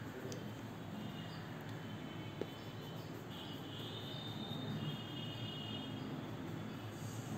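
Quiet background: a steady low hum with faint high chirping over it, and one light tap about two and a half seconds in.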